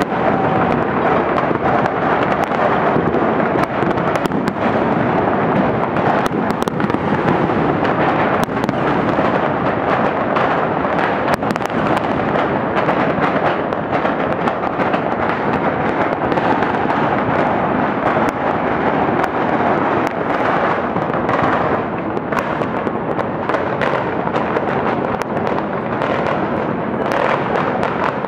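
Many fireworks going off at once: a continuous, loud crackling din packed with sharp cracks and pops.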